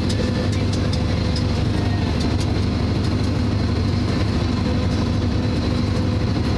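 Farm tractor engine running steadily in first gear, pulling a round baler.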